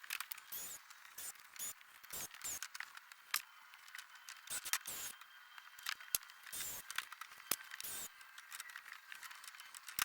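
Irregular clicks, knocks and short scrapes of hand work taking apart a wooden wall, with a few faint high chirps.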